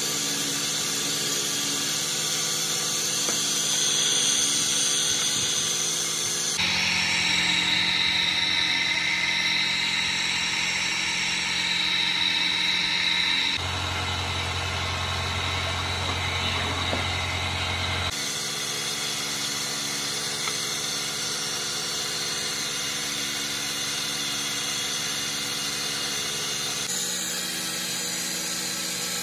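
Electric-motor-driven wood lathe running steadily while lacquer is applied to the spinning workpiece: a continuous hum with a high hiss. The tone shifts abruptly several times.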